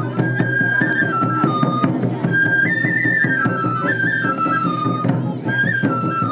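Lion-dance festival music: a Japanese bamboo transverse flute plays a stepped melody of held notes, over dense, quick drum beats.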